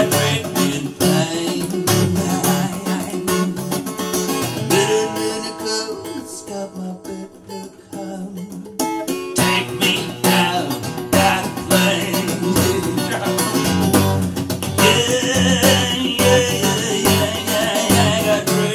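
Background music led by plucked acoustic guitar, which thins out to a quieter passage a third of the way in and returns in full about nine seconds in.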